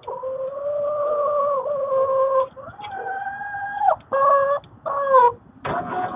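Chickens calling with long, drawn-out, wavering squawks, then two shorter calls that fall in pitch at the end. Just before the end a steady whine starts up: the motor of the automatic coop door opening.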